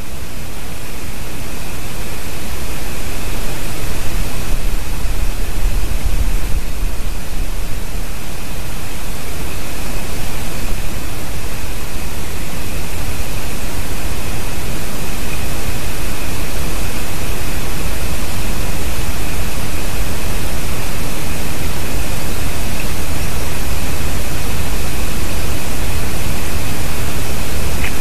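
Loud steady hiss with a low rumble that swells now and then, with a thin high whine running through it: the noise of an outdoor nest camera's microphone. No bird calls stand out.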